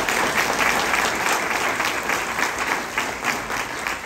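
Audience applauding, a dense patter of many hands clapping together, easing off near the end.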